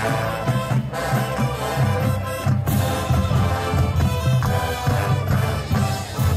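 High school marching band playing its halftime show: brass holding notes over drums, with a few sharp percussion hits. Heard from the stands through a cell phone's microphone.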